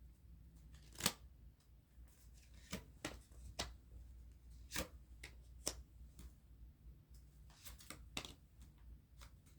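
Tarot cards being handled and shuffled: a scattered run of sharp card snaps and flicks in a small room.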